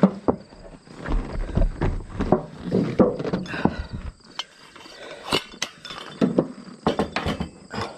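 Irregular knocks and light metallic clinks as the copper weathervane's ball and direction-arm assembly is handled and slid down onto its mounting rod.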